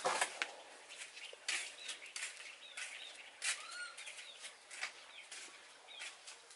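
Chicks peeping in short, arching cheeps, over and over. A sharp knock comes right at the start, and a few softer knocks follow.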